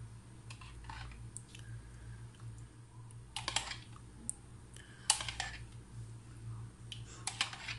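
A plastic spoon scraping and clicking against a plastic yogurt tub and the plate as thick yogurt is scooped out and spread over fried eggplant slices. It comes in four short clattery bursts, about two seconds apart, over a low steady hum.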